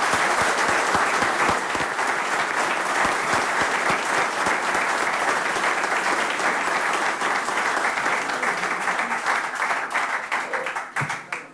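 A seated audience applauding, a dense, steady mass of hand claps that thins out and stops near the end.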